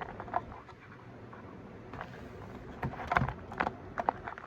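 Handling noise: a few light knocks and taps, about a second apart in the second half, over a faint background.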